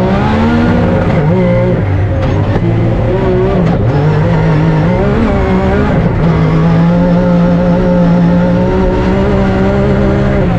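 Rally-raid car's engine running hard under load, its revs climbing and dropping several times as it shifts gears, then held steady for the last few seconds before easing off near the end.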